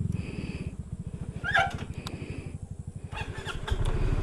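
SYM Cruisym 250 scooter's single-cylinder engine running at idle with an even low pulse, picking up near the end as the throttle opens to pull away. A brief high chirp about a second and a half in.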